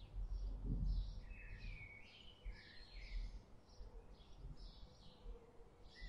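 Small birds chirping faintly, a string of short high chirps at about two to three a second, some of them falling in pitch, over a low background rumble.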